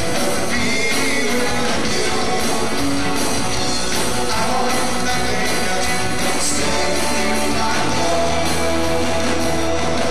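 Live worship band playing and singing: male and female voices over keyboard and drums.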